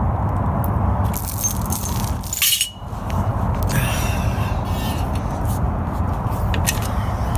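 Light metallic clinks and rattles of aluminum bar pieces being handled at a bench vise, scattered in short clusters over a steady low rumble.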